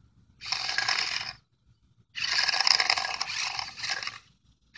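Hot Wheels High Jump Stunt Truck R/C driving in two bursts, about a second and then about two seconds long: its small electric motor whirs and its wheels run over rough asphalt.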